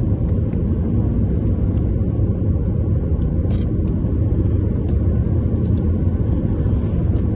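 Car driving along a highway, heard from inside the cabin: a steady, loud low rumble of road and engine noise.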